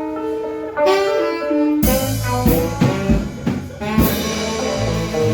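A band playing: a melody of long held notes, then the drum kit and bass come in about two seconds in.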